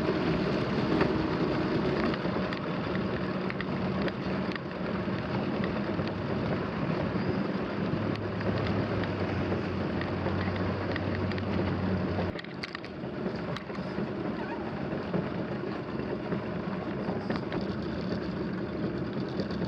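An engine running steadily with a low hum and a rushing noise. The deepest part of the hum cuts out about twelve seconds in while the rest of the engine sound carries on.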